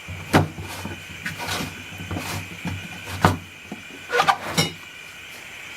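Wort in a homebrew fermenter being aerated, with a few sharp knocks and clatters: one shortly after the start, one just past three seconds, and a quick cluster around four seconds in, over a steady low hum.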